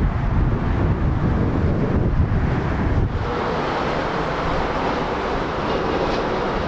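Jet aircraft engine noise, a deep rumble with wind buffeting the microphone. About three seconds in it changes suddenly to a steadier, higher engine noise with a faint hum.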